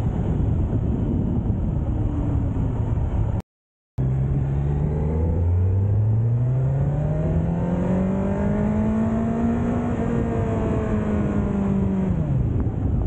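Kawasaki Z900's inline-four engine on its stock exhaust while riding, with wind rushing over the microphone. After a brief dropout in the audio about three and a half seconds in, the engine's pitch rises steadily as the bike accelerates, levels off, and falls away near the end.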